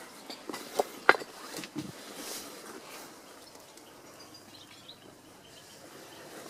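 Footsteps crunching on loose stone and broken roof-tile rubble, several sharp steps in the first two seconds, then a quieter stretch with only faint outdoor background.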